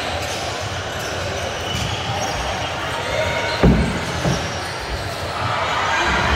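Basketballs bouncing on a hardwood court in a large, echoing sports hall, over a steady din of crowd chatter. Two louder bounces come about halfway through, the first the loudest.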